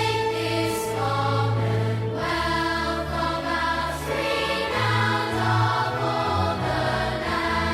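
Choral music: voices singing held notes over a sustained low accompaniment, the notes changing every second or two.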